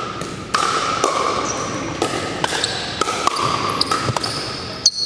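Pickleball rally in a gymnasium: sharp pops of paddles striking the plastic ball, several a second, echoing off the walls. High squeaks of sneakers on the hardwood floor run through the hits.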